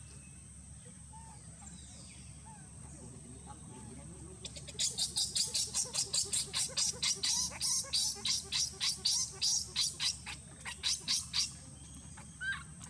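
Baby monkey crying in distress: a fast run of shrill, high-pitched cries, about three to four a second, starting about five seconds in.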